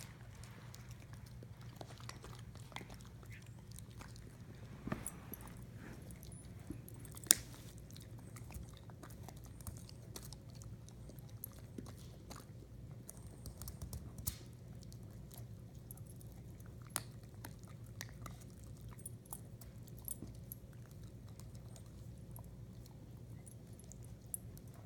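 Chewing and biting: irregular small crunches and clicks, with one sharp click about seven seconds in, over a steady low hum.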